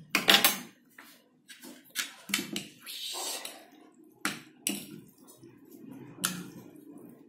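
Metal fork and spoon tossing and mixing sauced noodles on a paper plate: scattered sharp clicks and scrapes of the utensils, about seven in all, with a short rustle of the noodles being stirred about three seconds in.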